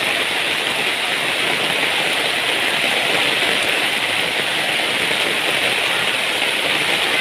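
Heavy rain falling in a steady downpour, an even hiss of water with no let-up.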